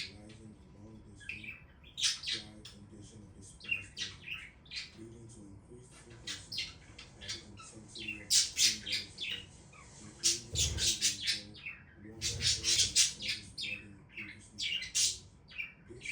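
Two budgies (parakeets) chattering with quick, sharp chirps and squawks, busiest about eight to nine seconds in and again around twelve to thirteen seconds.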